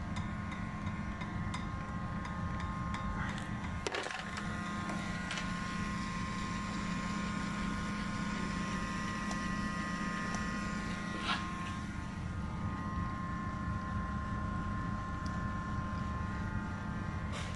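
Small electric motor of a model drilling rig running steadily with a constant hum and whine, with scraping and a couple of sharp clicks, one about four seconds in and one near eleven seconds.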